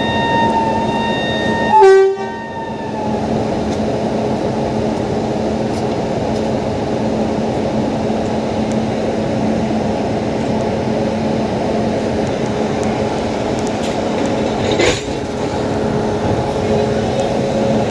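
A train horn sounds for about two seconds and ends in a brief, louder blast. After it comes the steady hum and whir of a standing WAP7 electric locomotive, with a single sharp click near the end.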